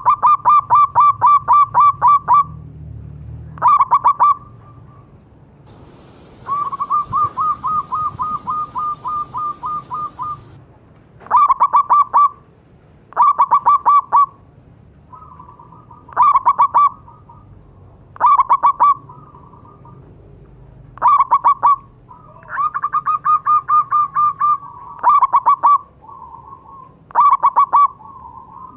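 Zebra doves (perkutut) calling: short, loud runs of quick staccato cooing notes, about five a second, repeated every couple of seconds, with a longer, quieter run of notes between about six and ten seconds in.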